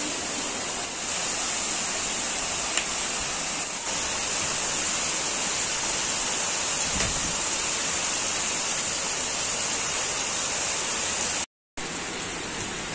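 Heavy rain pouring steadily onto trees and foliage: a dense, even hiss. The sound drops out for a fraction of a second near the end.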